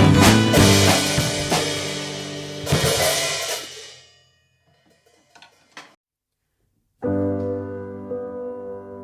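Song with drum kit and cymbals fading out over the first four seconds, then near silence, then a gentle piano intro starting suddenly about seven seconds in: one song ending and the next beginning.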